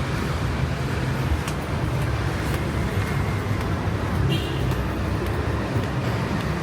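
Steady low rumble of outdoor street noise, with a few faint clicks.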